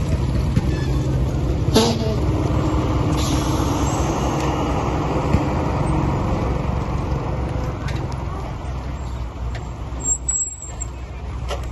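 Heavy diesel construction machinery running steadily with a low rumble, with a sharp knock about two seconds in and a hiss a second or so later.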